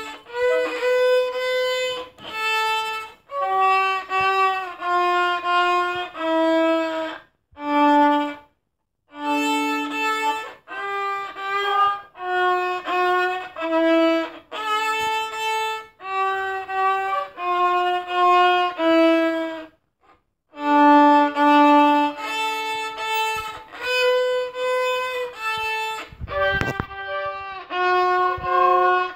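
Solo violin playing a melody one note at a time, with short breaks between phrases.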